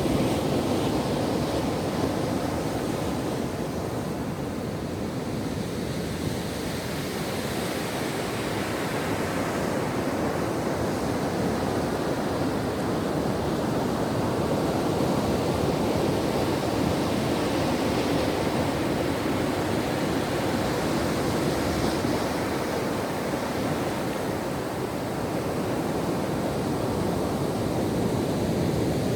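Ocean surf: waves breaking and washing onto a beach in a continuous rush that slowly swells and eases.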